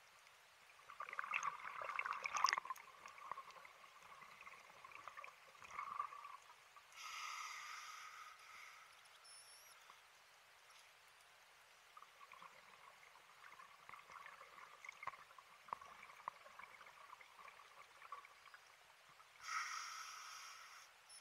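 Scuba diver breathing through a regulator, faint: exhaled bubbles gurgling and crackling, then a short hiss of inhalation about seven seconds in, another long stretch of bubbles, and a second inhalation hiss near the end.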